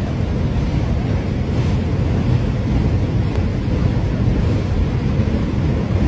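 Mudflow streaming down a channel after heavy rain: a steady, loud, low rushing rumble with no breaks.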